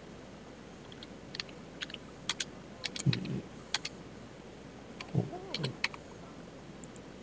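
Computer keyboard typing: scattered, irregular key clicks for a few seconds. Two short low murmurs come in among them, about 3 and 5 seconds in.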